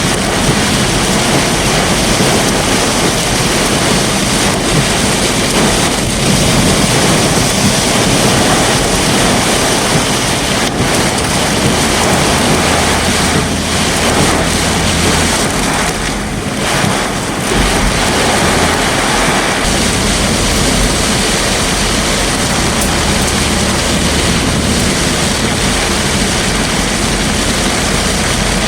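Loud, steady rush of heavy storm rain and wind, with a low vehicle hum underneath. It eases briefly a little past halfway through.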